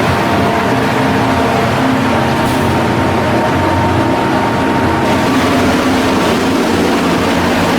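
Large diesel engine of a cargo ship running steadily at constant speed, a dense drone with several fixed tones running through it.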